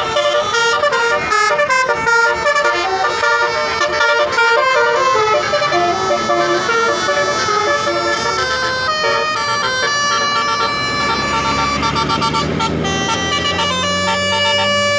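Bus telolet horn (a Basuri multi-tone air horn) playing a fast tune of horn notes that jump from pitch to pitch. In the second half a deep engine note rises steadily in pitch underneath.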